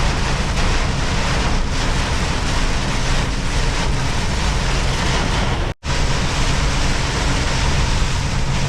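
Inside a semi-truck's cab driving through a heavy downpour: a steady wash of rain and tyre spray over the low, even drone of the diesel engine. The sound cuts out for an instant about six seconds in.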